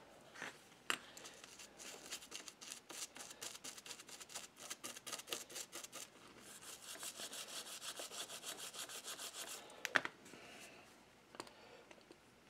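Toothbrush scrubbing tarnish off a small brass model locomotive truck: rapid back-and-forth bristle strokes, then a steadier continuous scrub, with a sharp click about ten seconds in.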